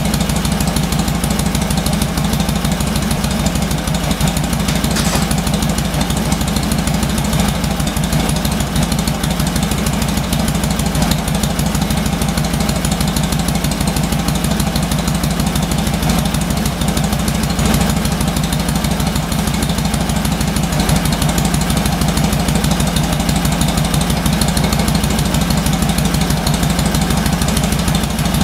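1946 Harley-Davidson FL 1200 Knucklehead V-twin engine idling steadily, with an even, rapid beat of firing pulses.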